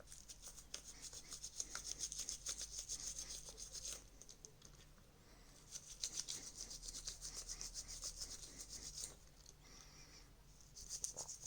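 Quick, faint scrubbing strokes on a TV remote's parts being cleaned with alcohol, in two spells of a few seconds each and a brief third one near the end.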